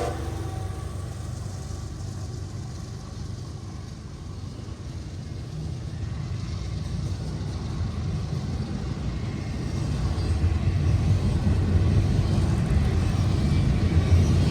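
Low rumble of a passing freight train just after its horn stops. It fades over the first few seconds and grows louder again about ten seconds in.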